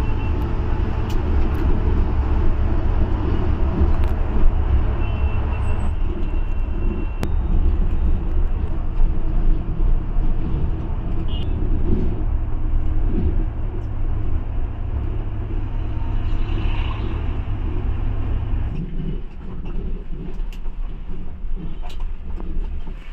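A heavy vehicle's engine running with a steady low rumble that eases off near the end, with a few light clicks over it.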